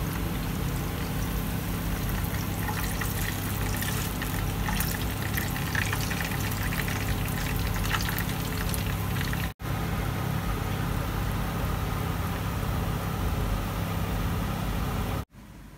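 Hot oil sizzling and crackling in a frying pan, over a steady low hum. It breaks off for an instant about two-thirds of the way through and stops just before the end.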